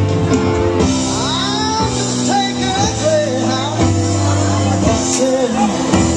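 Loud dance music with a singer: held bass notes changing every second or so under a gliding vocal line.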